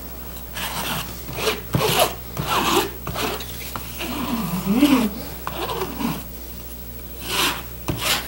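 A wooden-handled glue spreader scraping back and forth over vinyl tarp material, spreading wet vinyl cement in a series of short, irregular strokes.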